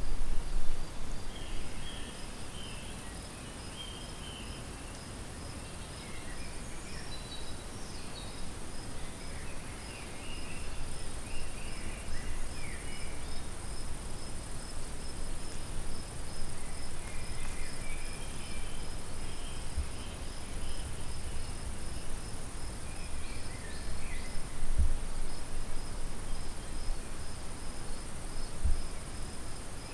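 Crickets chirping steadily in a meadow: a constant high trill with a rapid, evenly pulsed chirp over it. Short bird calls come and go throughout, over a low rumble with a few soft thumps.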